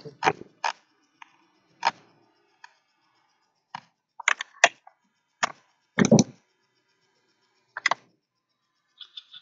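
Computer mouse clicking: about ten single sharp clicks, spaced irregularly a second or so apart, with a heavier click about six seconds in.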